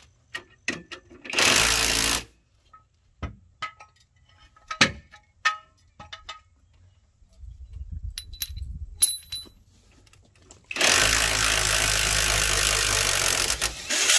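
Cordless impact wrench hammering, driving the scissor jack's screw: a short burst about a second and a half in and a steady three-second run near the end. Sharp clinks of tools and sockets between the bursts.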